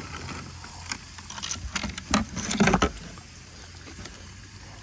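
Handling noises as a freshly caught smallmouth bass is held for measuring: a flurry of knocks, clicks and rustles from about one to three seconds in, over a steady low rumble.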